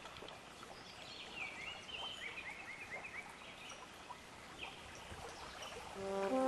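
Outdoor ambience of songbirds chirping over a faint steady background hiss, with a quick run of repeated chirps about two seconds in. Horn music begins to fade in near the end.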